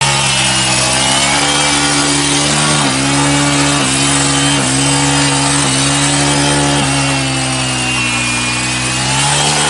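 Small two-stroke engine of a mini pocket bike running steadily at a fast idle, its pitch dipping briefly about once a second and sagging lower for a couple of seconds near the end before picking back up.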